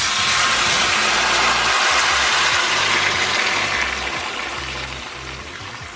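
A large batch of chopped tomatoes hitting hot sesame oil in a stainless steel wok, setting off a loud sizzle that starts suddenly and dies down gradually over the second half.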